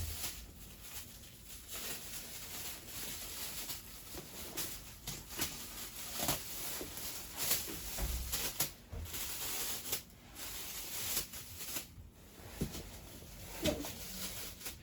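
Faint rustling and scattered clicks over a steady high-pitched hiss, like clothing and phone handling.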